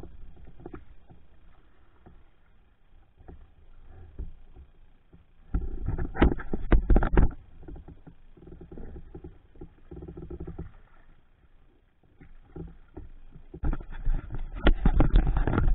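Kayak paddling: paddle strokes and water wash against the hull, with scattered light knocks. Two loud stretches of deep rumble and clattering knocks, one about six seconds in and one near the end.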